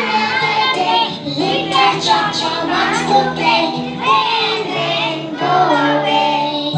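A song with children singing over sustained instrumental backing.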